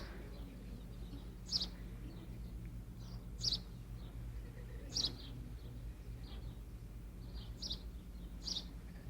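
A baby chicken (chick) peeping: short, high chirps about every one and a half to two seconds, over a faint steady low hum.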